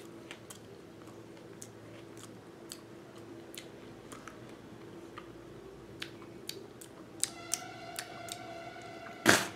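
Someone chewing a mouthful of crisp, slimy elephant apple (Dillenia indica) pulp, with faint scattered wet clicks. A steady high-pitched tone joins from about seven seconds in, and a short loud sound comes just before the end.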